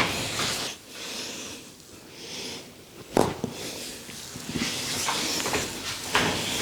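Hands rubbing and kneading an oiled head of hair, a rustling hiss, with one sharp impact about three seconds in.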